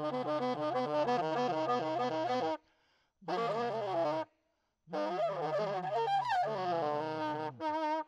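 Saxophone playing free improvisation: a fast, fluttering run of repeated notes over a low held tone, then honking phrases with bending, wailing pitch. The playing breaks off abruptly twice, for under a second each time.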